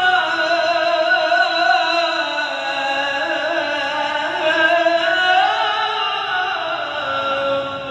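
A male qari reciting the Qur'an in the melodic mujawwad style, drawing out one word in a single long ornamented phrase whose pitch winds up and down and settles lower near the end.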